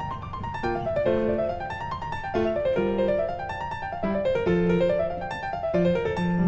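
Background piano music: quick arpeggios running up and down over sustained low notes.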